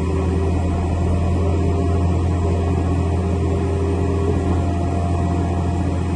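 Steady low machine drone with faint steady tones above it, from the running airliner and pushback equipment during an aircraft pushback; it does not change in pitch or level.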